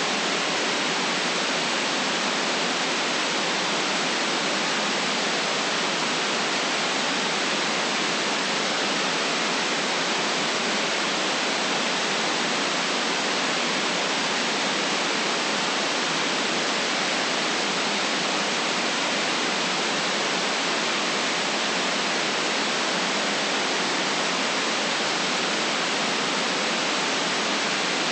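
Steady white noise: an even, unchanging hiss with no low rumble and no events.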